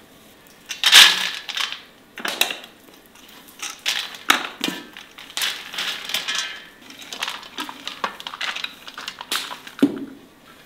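Sprouted wheat grains poured from an enamel bowl onto a metal tray, a rustling patter of falling grain coming in repeated pours. A duller knock sounds just before the end.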